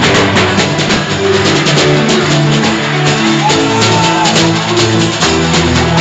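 Band music with guitar and drums, held notes over a steady beat, playing under a prayer session.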